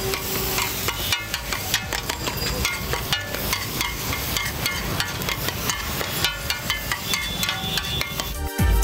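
Metal spatula chopping and scraping an egg omelette on a hot flat griddle, a fast clatter of many quick metal-on-metal strikes: the egg is being chopped into egg keema. It breaks off abruptly near the end.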